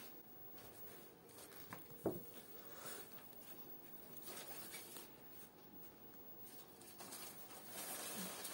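Quiet room with faint scattered rustling. One short, sharp sound about two seconds in is the loudest moment.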